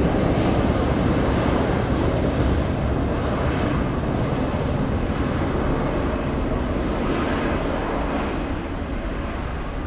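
Airbus A321-211 jet engines (CFM56-5B turbofans) at takeoff thrust during the takeoff roll: a steady, dense jet noise that slowly fades as the aircraft accelerates away down the runway.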